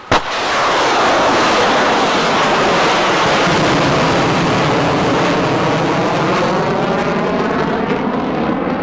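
Yakhont anti-ship cruise missile launching: a sharp bang, then the loud, steady roar of its rocket booster, with a slowly sweeping, wavering quality as the missile climbs away.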